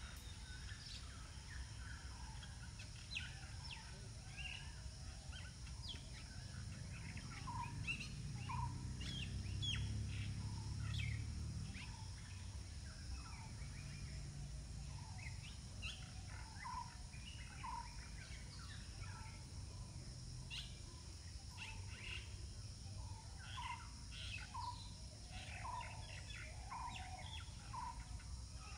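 Birds chirping: many short, high chirps throughout, and from about a third of the way in a short lower note repeating about once a second. Under them runs a low rumble that swells for a few seconds in the middle.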